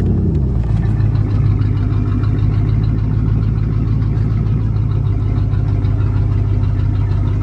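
Pontiac car engine idling steadily after a cold start without a working choke, settling to a slightly lower idle just after the start.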